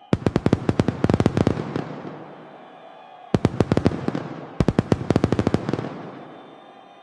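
Fireworks going off in two volleys of rapid crackling bangs. The first comes right at the start and the second about three seconds later, and each dies away into a fading hiss.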